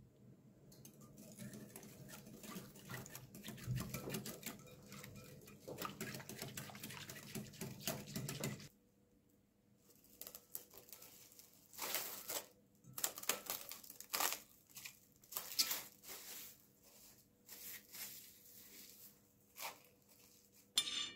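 Liquid being stirred into yeast in a glass bowl, a dense run of clicks and swishes, then plastic cling film pulled from its roll and crinkled in short crackling bursts as it is stretched over the bowl.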